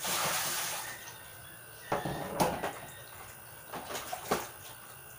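Water pouring out of a tipped plastic basin with a splash for about a second, followed by a few scattered knocks and splashes as the plastic basins and water are handled.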